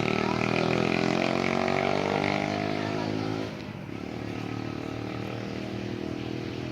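A motor vehicle's engine running close by, its pitch drifting. It is loud for the first three seconds, then drops off sharply about three and a half seconds in, and a quieter engine sound carries on.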